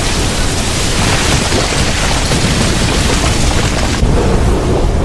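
Anime sound effect of an enormous shockwave blast, the Shinra Tensei (Almighty Push), tearing through a town: a loud, sustained explosive roar. About four seconds in, the hiss fades and leaves a deep rumble.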